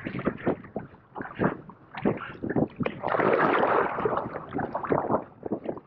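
Water splashing and sloshing against the side of the boat as a large hooked fish is drawn alongside, in many short splashes. About three seconds in comes a louder stretch of rushing, splashing water as the fish is taken at the gunwale.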